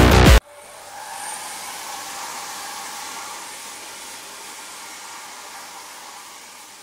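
Electronic music cuts off abruptly about half a second in. It is followed by a steady hissing, rushing noise, a sound effect over the news-style title animation, which fades slowly.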